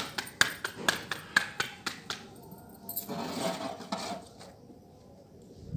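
A quick run of sharp clicks and knocks, about four a second, that stops about two seconds in, then a short muffled voice-like murmur about three seconds in.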